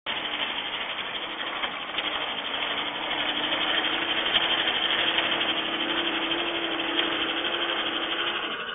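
Diesel engine of a Case compact track loader running steadily as the machine drives up the gravel driveway, growing louder through the middle, heard through a security camera's microphone.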